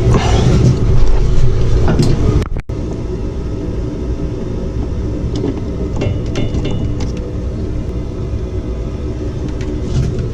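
A steady low rumble with a few light clicks, broken by a brief dropout about two and a half seconds in.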